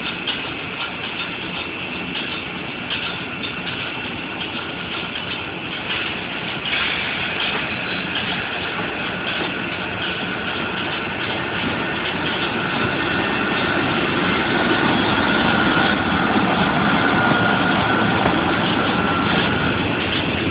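SNCF BB 26000 'Sybic' electric locomotive starting away with a train of Corail coaches, its equipment running with a steady whine over the rumble of the train. It grows louder in the second half as the locomotive and then the coaches roll past close by.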